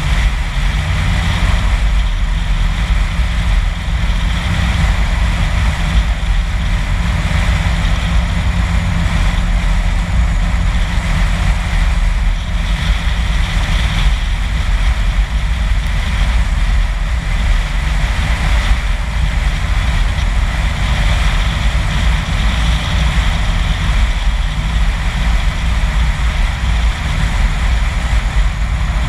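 A car driving at steady road speed: continuous tyre, engine and wind noise with a heavy low rumble.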